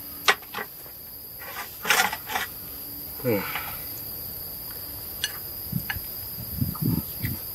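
Night insects, crickets, trilling steadily in high unbroken tones, with a few light clicks of chopsticks against a bowl as a man eats.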